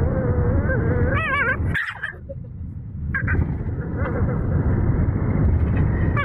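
French bulldog puppy 'talking': a wavering, whining yowl for about the first second and a half, then rough, lower grumbling noises after a brief break.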